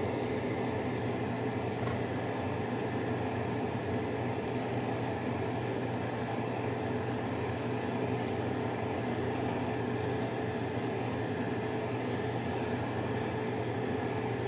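A steady mechanical hum: a constant low drone with an even rush of noise that does not change.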